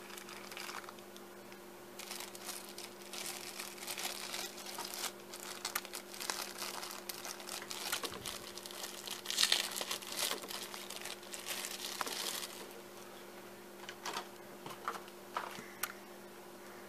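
Plastic packaging crinkling and crackling as it is handled for about ten seconds, then a few light clicks near the end, over a steady electrical hum.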